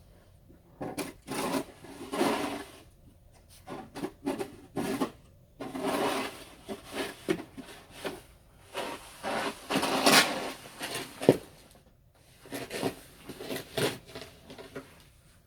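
Snow shovel scraping and pushing through snow in a series of irregular strokes, each a fraction of a second to about a second long, with short pauses between.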